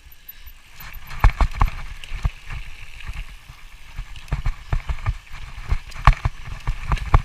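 Bicycle rattling and knocking over a rough trail: irregular sharp clatters over a low rumble, starting about a second in.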